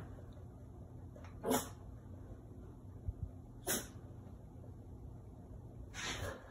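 Yorkshire terrier sneezing three times, short breathy bursts about two seconds apart, the first the loudest.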